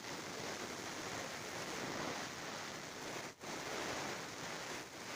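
Glass of water with two live razor-blade electrodes on mains power, fizzing and bubbling steadily as the current heats it toward the boil. There is a brief gap a little over three seconds in.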